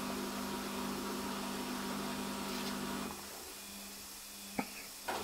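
Steady low hum with a faint hiss, which drops in level about three seconds in; a single short click near the end.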